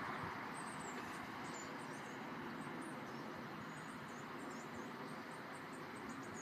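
Steady hum of distant road traffic, with small birds chirping in many short, high calls.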